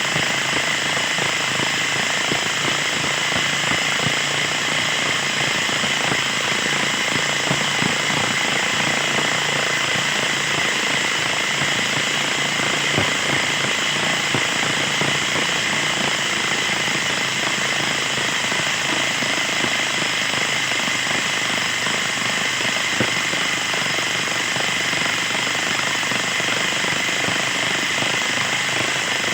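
Small engine of a freshly overhauled mower, fitted with a new piston and piston ring, running steadily and loudly with a fast, even pulsing.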